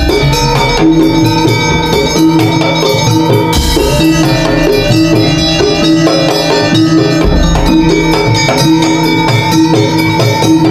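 Madurese tong-tong percussion ensemble playing an instrumental passage: drums keep a steady beat under a melody of held notes.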